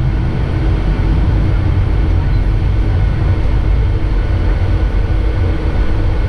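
Jet airliner cabin noise as the plane taxis: a steady low rumble of engines and airframe, with a faint steady hum above it and no rise in power.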